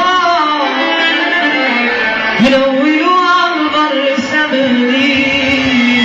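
Male Egyptian shaabi singer performing a mawwal: long, ornamented sung phrases that bend and hold their pitch, over live instrumental accompaniment.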